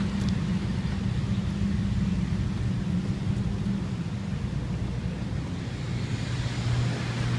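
Steady engine drone of large 90 kW generators running. About six seconds in it gives way to a lower, steadier hum of drying equipment: a desiccant dehumidifier and air movers.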